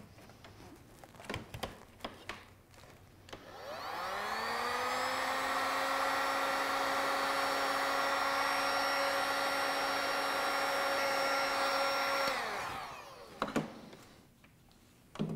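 Handheld electric heat gun switched on, its fan motor whining up to speed and then blowing steadily for about eight seconds before it is switched off and spins down; it is shrinking heat-shrink tubing over a crimped copper cable lug. A few light handling clicks come before it starts and after it stops.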